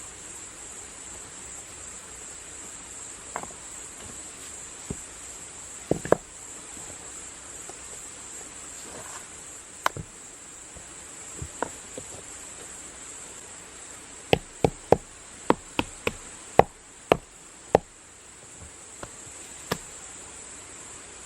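Steady high-pitched insect chorus, like crickets, with scattered sharp knocks. About two-thirds of the way in comes a quick run of about ten knocks, a few each second.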